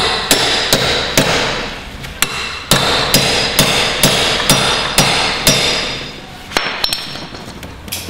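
Hammer blows on a steel bar wedged behind a door handle, metal on metal with a ringing edge. About two strikes a second for roughly five seconds, a short pause, then two more near the end: an attempt to lever the handle off the door.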